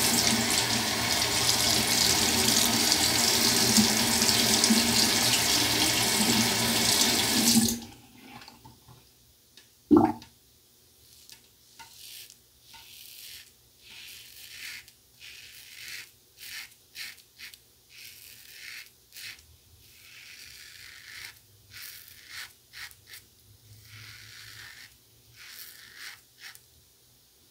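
A tap runs into the sink for about eight seconds and then shuts off suddenly, followed about two seconds later by a single sharp knock. Then come short, quiet, scratchy strokes of a Pearl Flexi double-edge safety razor with a Gillette Winner Stainless blade cutting two days' stubble through lather.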